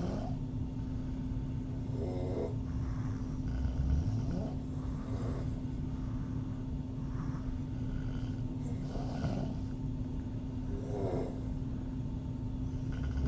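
A woman snoring through an open mouth: a short rattling snore every couple of seconds, with breathy exhales between, over a steady low hum and rumble.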